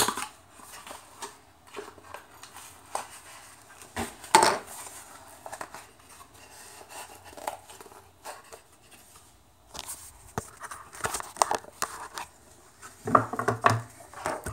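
Hands fiddling with a small red box fitted with little metal hinges or clips, giving scattered clicks, taps and clinks, one sharper clack about four seconds in. Near the end comes a burst of rustling and knocking as the phone is handled.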